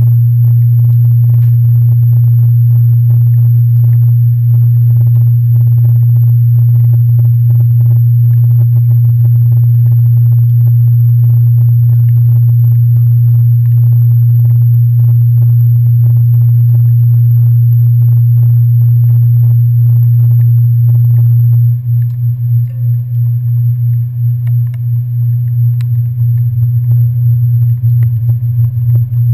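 Passenger ferry's engines running as a loud, steady low drone, picked up as vibration by a handlebar-mounted GoPro standing on the deck. A little over two-thirds of the way through, the drone starts to waver and pulse unevenly as the boat moves off from the terminal.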